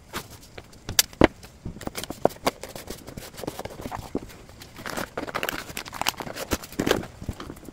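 Packing sounds from hands handling a corrugated cardboard box and a kraft-paper-wrapped parcel: scattered taps and knocks of cardboard, with paper rustling about five seconds in and again near the end.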